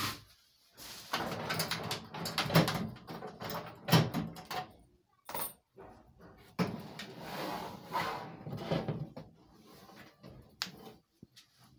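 Clattering and knocks from handling a steel POS cash drawer and its cables: the drawer slides shut and the metal housing is bumped and shifted. The loudest knocks come a little after two seconds and at four seconds.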